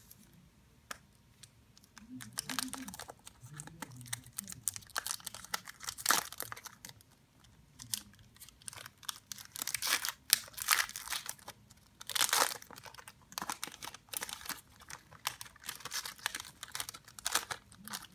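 Foil Pokémon trading-card booster pack being crinkled and torn open by hand, in irregular bursts of crackling and ripping, loudest near the middle.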